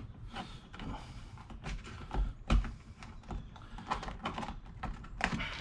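Irregular plastic clicks and knocks as a sun-visor vanity mirror is pried out of its retaining clips, the sharpest about two and a half and five seconds in.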